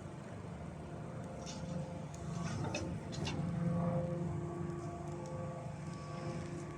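Piling rig's engine running with a steady low drone and a faint whine over it, swelling a little around the middle. A few light clicks come about two to three seconds in.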